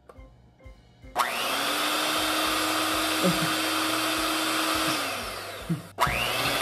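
Handheld electric mixer switched on about a second in, its motor spinning up and then running steadily as the beaters work cake batter in a glass bowl. Near the end it slows, cuts off briefly and starts up again.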